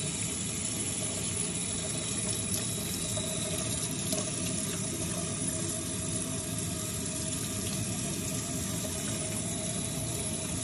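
Water from a kitchen faucet's pull-down sprayer running steadily, splashing over a dog's wet coat and into a stainless steel sink.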